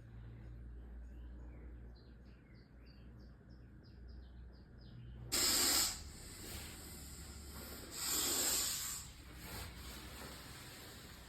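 Russell's viper hissing: two loud, harsh hisses, a short one starting suddenly about halfway through and a longer one a few seconds later. Birds chirp before them.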